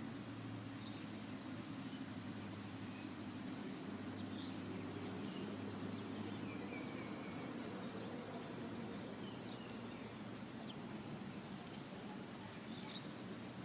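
Small birds chirping faintly and sparsely, in short scattered calls, over a steady low background rumble.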